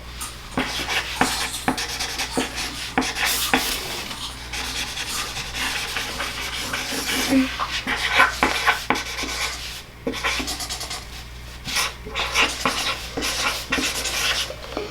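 Someone chewing potato chips with their mouth close to the microphone: a run of irregular crisp crunches, several a second, with brief pauses.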